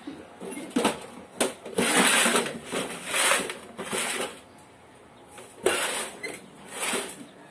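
Handling noises: a run of irregular rustles and clatters with two sharp clicks about a second in, the longest rustle lasting under a second.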